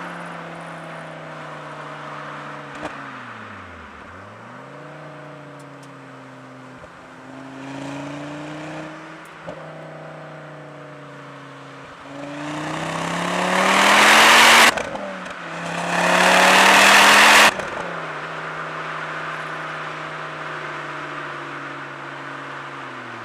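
Ford Focus ST with a Milltek resonated exhaust on the move: the engine cruises, its revs dip and come back up about three seconds in. About halfway through come two hard full-throttle pulls, the loudest part, each rising in pitch and cutting off sharply at a gear change. It then settles to a steady cruise, with revs falling near the end.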